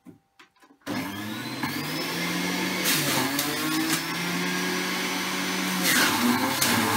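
Electric centrifugal juicer switched on about a second in, its motor spinning up with a rising whine and then running steadily as apple, lemon and ginger are pushed down the feed chute. There are louder surges, and the pitch sags, about three and six seconds in as the fruit is shredded under load.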